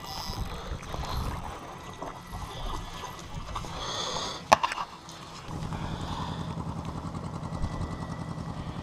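A hooked sea bass splashing and thrashing in shallow water as it is drawn ashore onto pebbles, with one sharp click about four and a half seconds in. From a little past halfway a steady low hum with a fast even pulse sets in.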